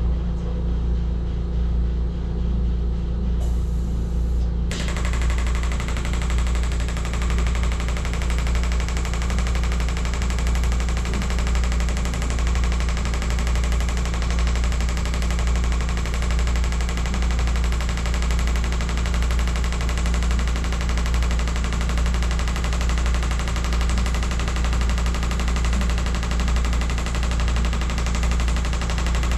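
Radial shockwave therapy handpiece firing in rapid, even succession: a small projectile strikes a metal drum in the applicator, giving a fast machine-gun-like tapping over a steady low hum as it is worked over the back muscles.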